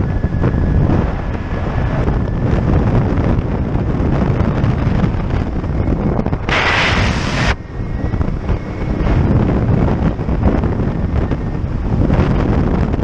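Wind buffeting the microphone of a helmet camera in an open-cockpit flexwing microlight trike in flight: a steady low rumbling rush. About halfway through, a sharper gust of hiss lasts about a second.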